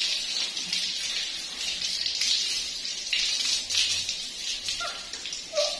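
Tap water running from a wall faucet and splashing onto a baby monkey's fur as it is washed, a steady spattering that swells and eases as the animal is moved under the stream. A couple of brief squeaks come near the end.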